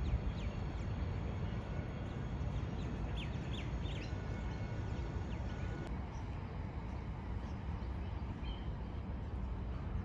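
Steady low outdoor rumble, like wind and distant city noise, with a few short bird calls about three to four seconds in.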